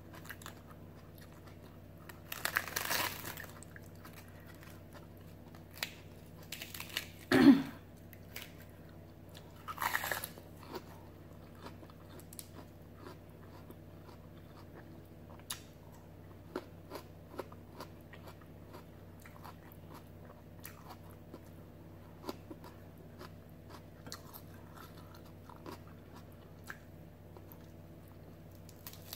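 Crisp iceberg lettuce being bitten and chewed close to the microphone. Loud crunches come about three, seven and ten seconds in, followed by a long run of softer, scattered chewing clicks.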